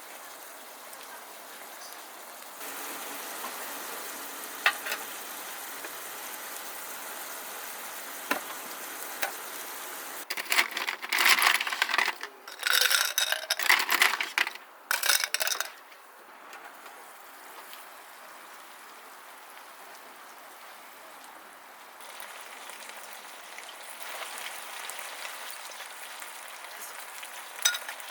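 Food sizzling in a pan over a camp stove, with scattered clicks of utensils. A louder spell of crackling runs from about ten to sixteen seconds in.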